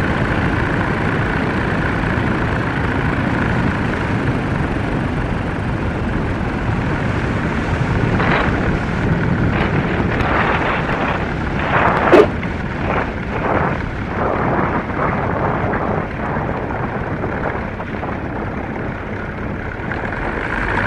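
BushCaddy R80's MWfly B25L 150 hp engine and propeller running at low power under a steady rush of wind through the landing. About halfway through comes a run of thumps with one sharp bang, the wheels meeting the runway at touchdown.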